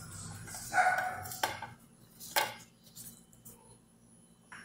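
Food being handled on a plate: a few sharp clicks and taps as gloved hands roll raw chicken fillets around asparagus spears. There is also a brief pitched sound about a second in.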